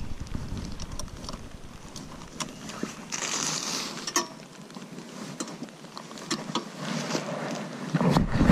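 Riding noise on a rough, wet dirt track: wind on the microphone with scattered clicks and rustles from a plastic rain cover brushing against the camera. A low rumble drops away about two seconds in and comes back near the end.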